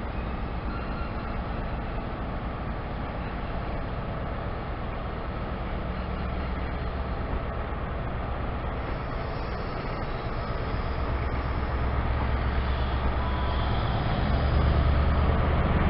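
CrossCountry High Speed Train with class 43 diesel power cars pulling out of the platform: the coaches roll past over a steady low diesel engine hum. The hum grows louder over the second half.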